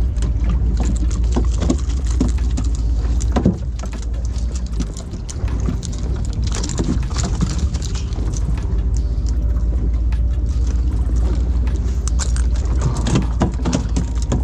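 Fishing boat under way while trolling: a steady low motor rumble with a haze of water and wind noise, broken by irregular knocks and splashes.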